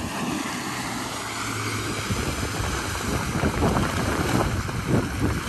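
Wind buffeting the microphone over rushing sea water around a RIB, with the low hum of Yamaha 225 hp V6 outboard engines.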